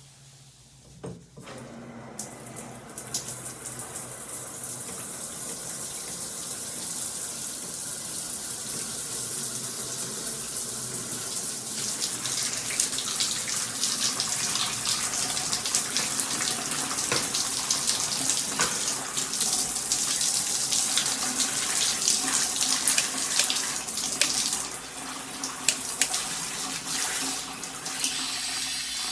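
Water spraying from a rain shower head. It is turned on after a short knock about a second in, builds to a steady hiss, and runs louder from about halfway through.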